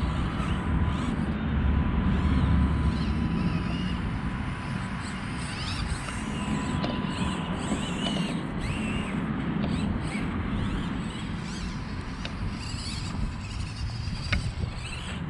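Axial SCX24 1/24-scale RC rock crawlers creeping over rocks: small electric motors and gears whirring, with creaks and clicks from the drivetrain.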